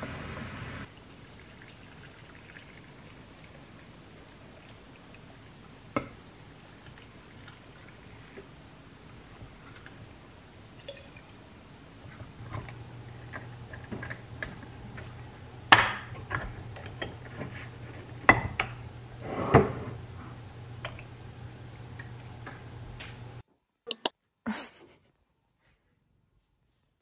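Glass clamp-lid pickle jars handled on a counter: a few sharp glass clinks and clacks as the lids are closed over pickles in brine, over a low steady hum. Near the end the sound drops to near silence.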